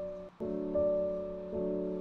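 Soft background music of sustained keyboard chords, the chord changing about once a second.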